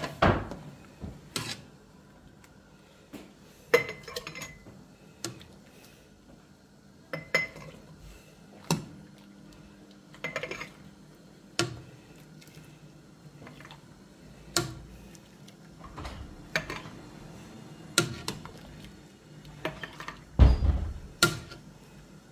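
Metal ladle clinking and knocking against a stone-coated pot and a glass jar while quince pieces and syrup are ladled into the jar: sharp, separate knocks every second or two, with a heavier, deeper knock near the end.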